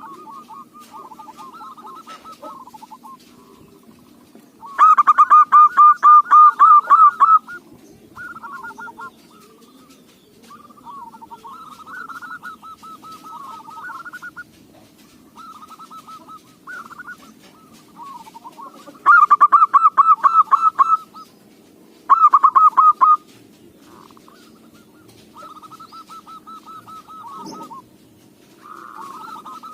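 Zebra doves (perkutut) cooing in rapid trilled runs, one call after another, some louder and some fainter. The loudest runs come about five seconds in and twice around two-thirds of the way through.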